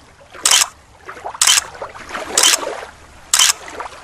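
A steady beat of short, loud swishing noises, about one a second, with softer rustling and watery noise between them.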